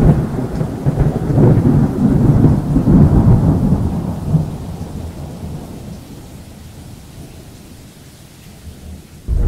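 Thunder sound effect: a deep rumble that slowly dies away over about eight seconds, with a new loud sound starting abruptly at the very end.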